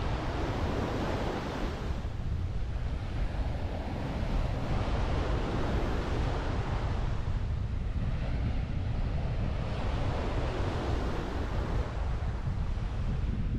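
Surf washing onto the beach, swelling and fading every few seconds, over a steady low rumble of wind on the microphone.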